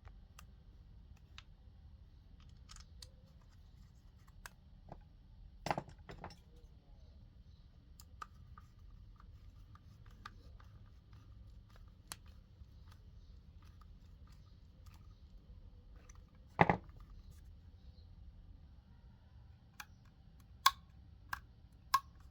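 Scattered sharp clicks and taps from small tools and parts being handled during hands-on assembly work, over a steady low hum. The loudest taps come about six seconds in, about seventeen seconds in, and three times near the end.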